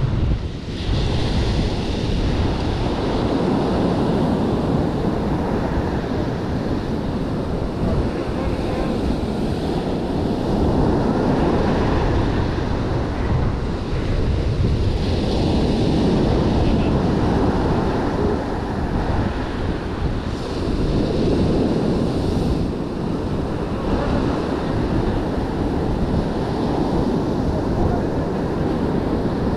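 Ocean surf breaking on a sandy beach, swelling and easing every few seconds as the waves come in, with wind buffeting the microphone.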